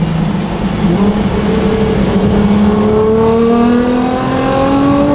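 Nissan GT-R R35 twin-turbo V6 with catless mid-pipes, heard from inside the cabin, pulling hard under acceleration. There is a downshift about a second in, then the engine note climbs steadily as the revs rise.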